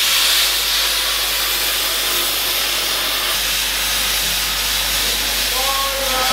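Plasma cutter cutting through steel plate overhead: a steady, loud hiss of the air jet and arc that does not break as the torch works round the hole.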